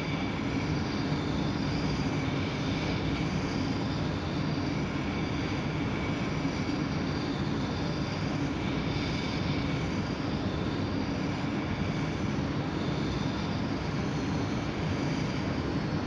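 A ball of sodium metal fizzing and hissing steadily as it reacts with water, giving off hydrogen gas.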